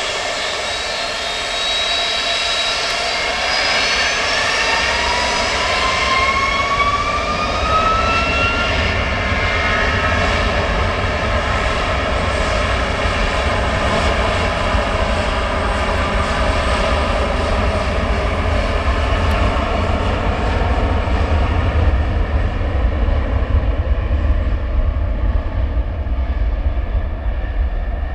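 Boeing 757's twin Rolls-Royce RB211-535 turbofans spooling up to takeoff power: a whine climbs in pitch over about the first ten seconds, then holds steady over a deep roar as the jet accelerates on its takeoff roll.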